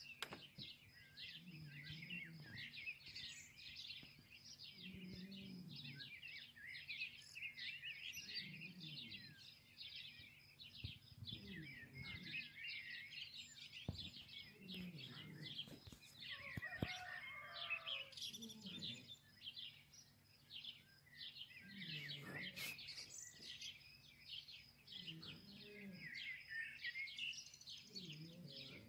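Small birds chirping in a dense, continuous chorus, with a lower call repeating every couple of seconds and a few faint knocks near the middle.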